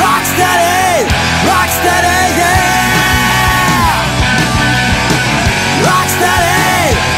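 Loud rock music with a melody line that bends and glides in pitch over a dense, steady backing.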